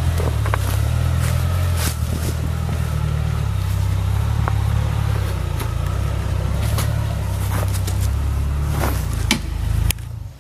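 Mitsubishi L300 4WD van's engine running at low revs as the van crawls over rocks, with a few sharp knocks along the way. The engine sound cuts off abruptly near the end.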